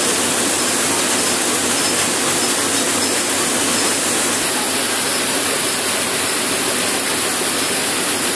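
Seed processing plant machinery running, a steady rushing noise, as a stream of seed pours from a metal chute into a bin.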